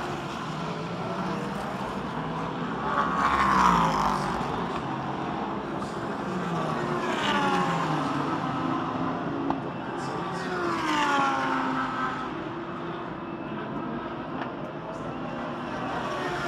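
Endurance race cars passing on the track one after another, each engine note dropping in pitch as the car goes by. The loudest pass comes about three and a half seconds in, with further passes around seven and eleven seconds and another starting near the end.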